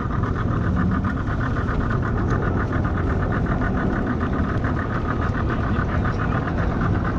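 Boat's outboard motor idling steadily, with a fast, even pulse.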